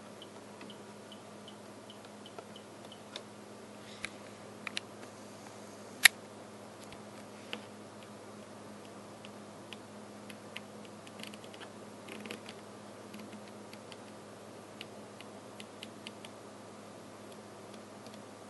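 Front-panel push buttons of an HP 54540A oscilloscope being pressed during its keyboard self-test: irregular sharp clicks, one much louder about six seconds in, over a steady low hum.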